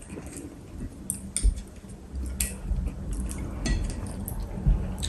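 Chopsticks clicking and tapping against plates and bowls during a meal, a few sharp, irregular clicks scattered throughout, with soft squishy eating sounds.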